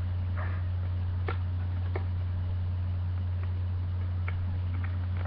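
Small scattered plastic clicks and taps, about seven of them, as the pieces of a toy security locker are handled and fitted together, over a steady low hum.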